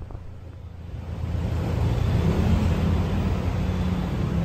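Street traffic noise: a low vehicle engine rumble that swells about a second in and then holds steady.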